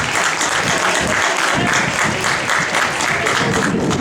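Crowd of spectators applauding, many hands clapping steadily.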